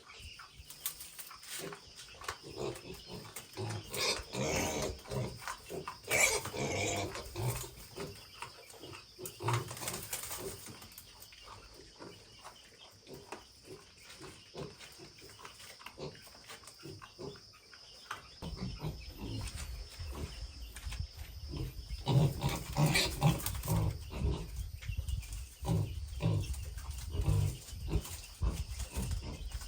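Pigs vocalizing: several loud squeals, and from about two-thirds of the way in a dense run of short low grunts.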